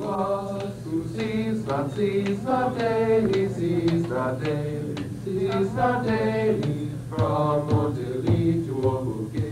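Small vocal ensemble singing, with the voices moving from note to note over a steady low hum.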